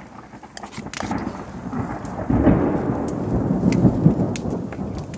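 A long roll of thunder rumbles low, building about a second in and loudest through the middle, over steady rain. A few light clicks of a spoon against the plate and bowl come through on top.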